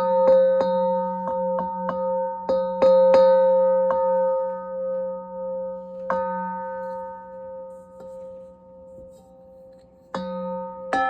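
Metal bowls struck again and again, each strike ringing on as several steady tones at once. The strikes come quickly for the first few seconds, then thin out and the ringing dies down, before two fresh strikes near the end.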